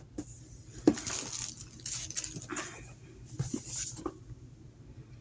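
Hard parts and plastic packaging of a smart lock being handled, with light knocks and crinkly rustling in several short bouts and a sharper knock about a second in.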